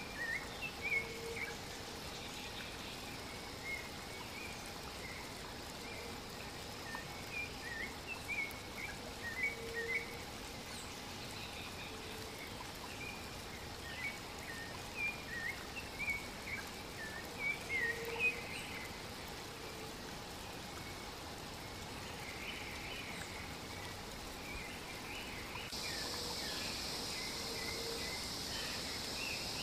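Forest birdsong: many short, high chirps and calls scattered through the whole stretch, with a few brief low notes in between. Near the end a steady, high insect buzz joins in.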